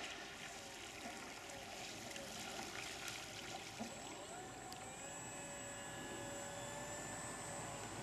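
Radio-controlled model floatplane's motor and propeller whining as it taxis on the water, with water rushing and splashing at the floats. A higher steady whine joins about halfway through.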